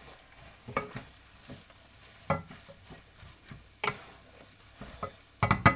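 Wooden spoons knocking and scraping against a wok-style frying pan while stirring noodles and vegetables, over faint sizzling: a few scattered knocks, then a quick cluster of louder knocks near the end.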